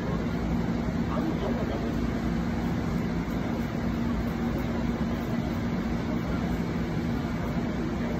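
Steady railway-station ambience: an even mechanical rumble with a low, steady two-tone hum, from idling train or station ventilation machinery.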